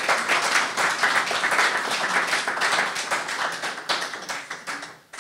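A small audience applauding, the clapping thinning out and dying away about five seconds in.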